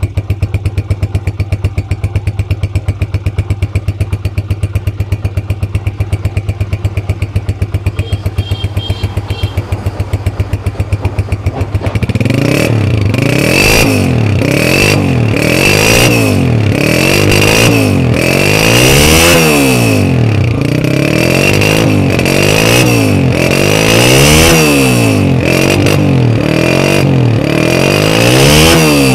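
Honda CG125's single-cylinder four-stroke engine running through its new genuine Atlas Honda silencer, freshly started from cold. It idles steadily for about twelve seconds, then is revved again and again with quick throttle blips, the pitch rising and falling with each one.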